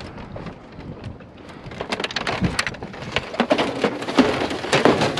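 Rain falling, with a dense run of sharp clicks and knocks that starts about two seconds in and grows louder toward the end.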